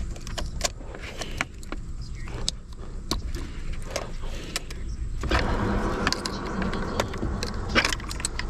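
Irregular clicks and knocks of hand work on a car's steering wheel and column as the wheel is worked loose, turning into a denser stretch of clattering and rubbing about five seconds in.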